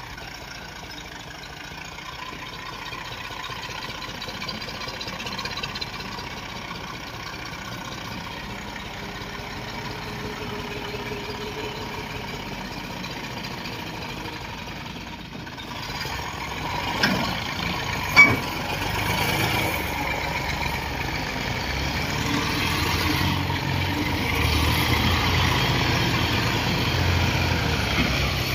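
Farm tractor's diesel engine running steadily, getting louder in the second half, with two sharp knocks a little past the middle.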